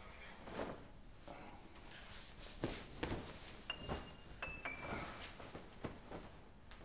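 Cotton T-shirt rustling as it is pulled up over the head and off, with a few soft knocks. In the middle come three short high tones, each a little lower than the one before.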